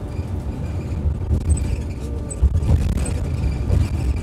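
Rumble of a moving bus heard from inside the cabin: a steady low road and tyre rumble at highway speed, with a faint high whine above it.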